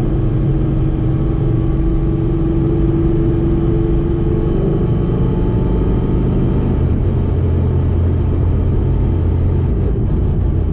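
Ford Mustang heard from inside the cabin, cruising in third gear at about 3,000 RPM: a steady engine and drivetrain drone carrying the gear noise of its Calimer Stage 3 MT82 six-speed manual transmission. A mid-pitched hum fades out about halfway through while a deeper drone grows.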